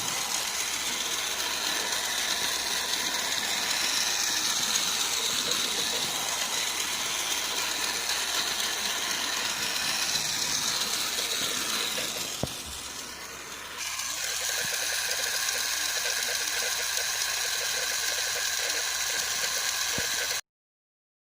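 Plarail E259-series battery toy train running, its small electric motor and plastic gearbox whirring steadily. The sound dips quieter for a couple of seconds a little after halfway, then cuts off suddenly near the end.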